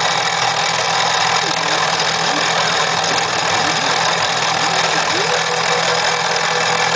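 Spindle motor of an X2 mini mill converted to CNC running steadily while its engraving bit cuts into wood. Several brief rising and falling whines come from the stepper motors as the axes speed up and slow down along the cut.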